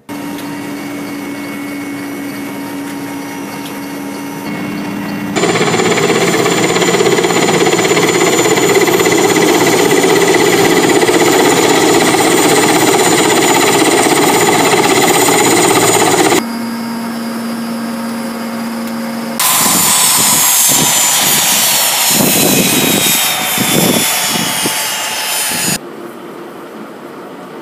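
Mil Mi-8 helicopter's twin turboshaft engines and main rotor running loudly as it flies low. Later the turbine whine falls steadily in pitch with pulsing rotor beats as it winds down.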